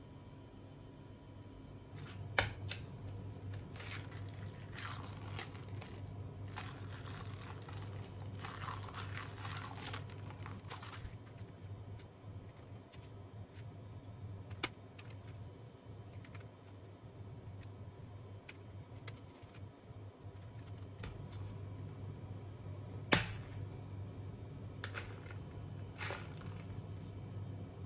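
Thin plastic sealing film on a cup of iced milk tea crinkling and clicking as a straw is jabbed at it again and again without piercing it. There are a few sharp clicks, the loudest about two-thirds of the way through, over a low steady hum.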